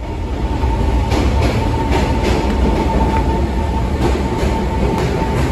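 Taiwan Railways electric train running at a station platform: a loud, steady low rumble with a thin steady whine on top, and sharp clacks in pairs of wheels passing over rail joints.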